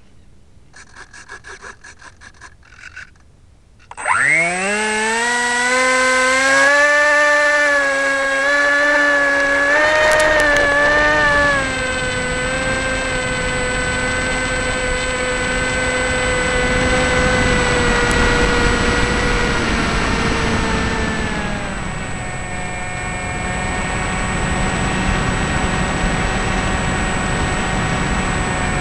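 Electric motor and propeller of a Floater Jet RC motor glider heard from its on-board camera: after a short run of rapid pulses, the motor spins up suddenly about four seconds in with a rising whine and holds a steady whine through the take-off and climb. The whine drops after about eleven seconds and fades out after about twenty-one, leaving steady wind rush as the plane glides.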